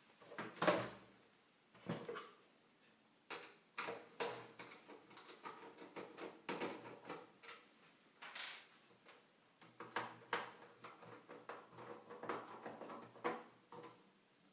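Irregular clicks, knocks and short scrapes of metal and plastic parts being handled while a PlayStation 3 Fat console is taken apart, as its power supply unit is worked loose.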